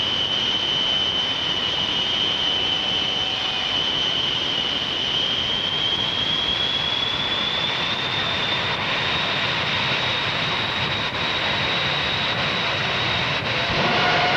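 The Shockwave jet truck's three jet engines running at the line with afterburners lit: a steady, loud jet noise with a high whine that slowly rises in pitch partway through. Near the end a lower whine comes in and the sound grows louder.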